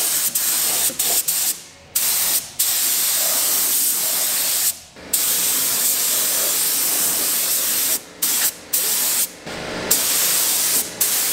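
Compressed-air gravity-feed spray gun hissing steadily as it sprays paint. The hiss stops briefly several times where the trigger is let off between passes.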